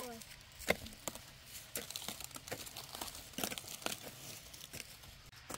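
Cabbage leaves being picked and handled, crinkling and snapping in a run of irregular sharp crackles.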